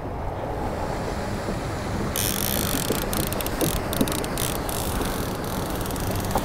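Steady wind noise on the microphone. About two seconds in, it turns to a brighter hiss with faint crackles.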